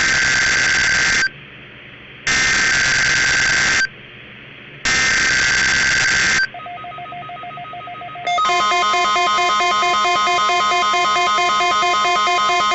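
NOAA Weather Radio test signal off a weather radio receiver. There are three bursts of harsh, screeching SAME digital header data, each about a second and a half long with about a second between them. After a short fainter stretch, the steady 1050 Hz warning alarm tone comes on a little over eight seconds in.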